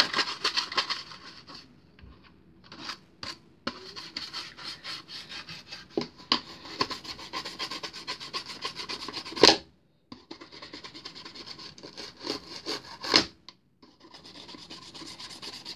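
A toothbrush scrubbing a plastic CD case in runs of quick back-and-forth strokes, with a few short pauses. There are two louder knocks, about nine and thirteen seconds in.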